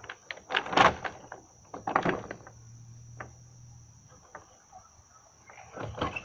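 Metal swing chains and the wooden swing frame knocking and rattling in a few sharp bursts as someone climbs onto a swing and flips around on it.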